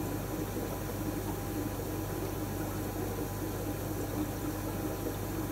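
Steady aquarium equipment noise: water moving through filtration, over a constant low hum.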